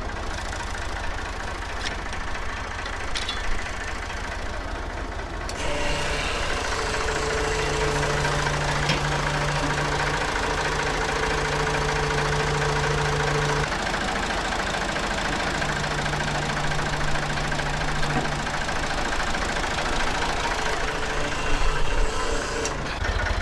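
Farm tractor engine running: a low idle at first, then louder at a higher engine speed from about six seconds in with a few changes in pitch, dropping back to idle near the end.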